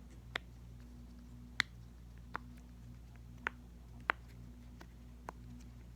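Silicone pop-it bubbles on a dolphin-shaped poppet being pressed through one at a time, giving about six sharp, separate pops at an uneven pace.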